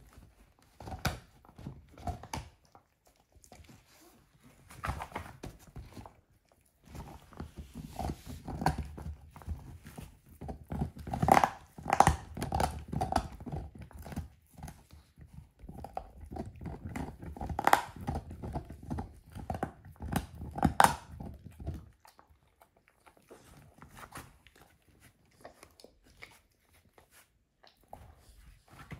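A dog gnawing and crunching a lamb bone: irregular cracks and crunches, densest and loudest through the middle, then sparser and quieter near the end.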